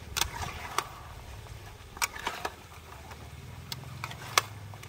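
Metal spatula and spoon clinking and scraping against a steel wok while stir-frying green beans: about eight sharp, irregular clinks over a low steady hum.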